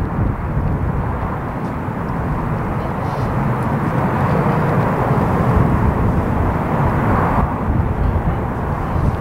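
Jet engines of a twin-engine airliner landing, heard at a distance across an airfield. A steady, broad engine noise swells slightly toward the middle and eases after about seven seconds.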